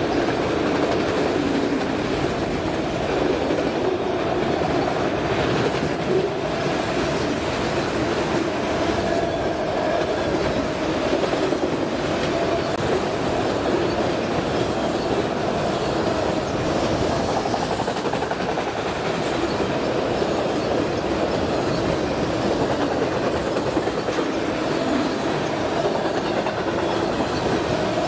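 BNSF freight train rolling past: a steady rumble and clatter of steel wheels on rail that keeps an even level throughout.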